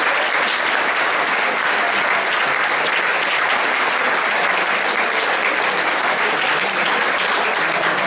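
Audience applauding steadily in a hall.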